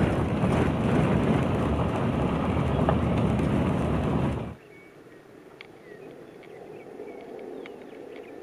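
Road and wind noise of a moving car, a loud steady rumble, that cuts off suddenly about four and a half seconds in to quiet open air with scattered short bird chirps.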